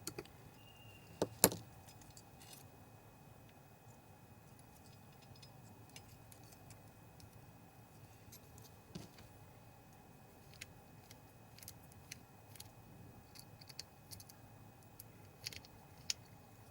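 Small parts and tools being handled while the projector's colour wheel assembly is taken apart: a sharp double click about a second and a half in, then scattered light clicks and taps.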